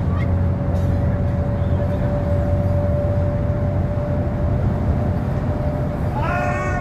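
Train running: a steady low rumble with a constant whining tone held over it.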